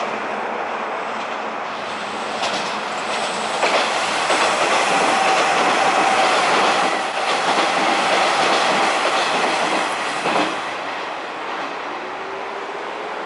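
Hanshin 8000-series electric train running past as it comes up out of the tunnel, wheels clacking over the rail joints. It grows louder through the middle, with a faint steady whine, then fades as the last cars pass.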